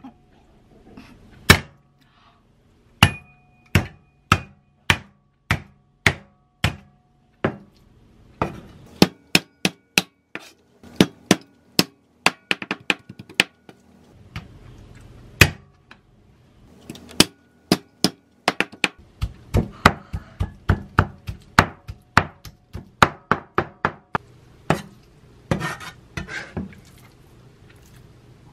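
Steel cleaver chopping peeled raw shrimp on a wooden cutting board, mincing it: sharp knocks, spaced apart at first, then quicker runs of chops. Near the end, a short stretch of scraping on the board.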